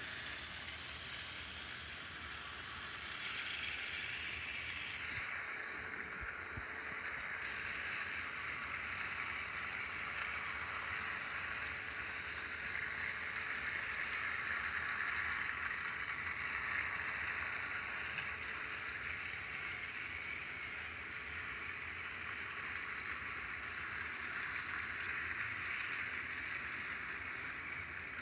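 Battery-powered TrackMaster toy train motors running, their plastic wheels on plastic track giving a steady whirring hiss, with a faint hum that comes in about five seconds in and fades by around twenty seconds.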